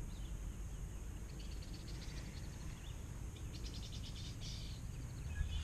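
Birds chirping in short runs of quick high calls over a steady low outdoor rumble.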